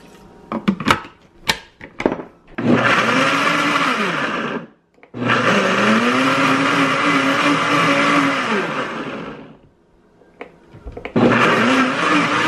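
Countertop blender pureeing chunks of raw beetroot. After a few clicks, the motor runs in three bursts: about two seconds, then about four and a half seconds, then again from about eleven seconds on. Its pitch sags and rises again during each run.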